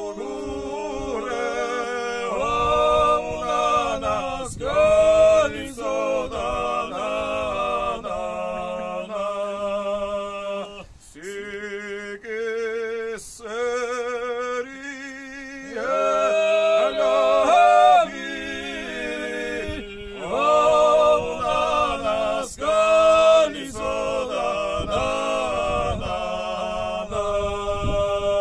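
A Georgian folk song sung a cappella by men's voices in several parts. The upper voices move through phrases over a steady, held low drone note.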